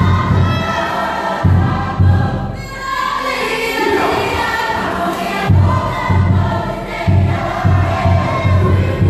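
Cook Islands group song: many voices singing together over a steady low drum beat of about two to three beats a second. The drum stops for about three seconds midway while the singing carries on, then comes back in.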